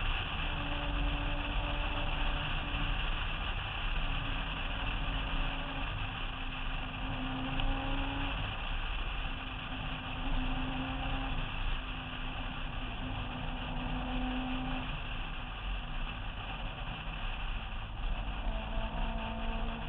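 A car driving at speed, its engine running at fairly steady revs that rise and fall a little, under heavy wind rumble on a roof-mounted camera.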